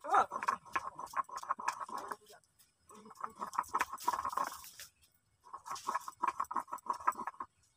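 Stone grinding slab (shil-nora) being worked by hand, a stone muller scraping rapidly back and forth over the slab in three bouts of strokes with short pauses between.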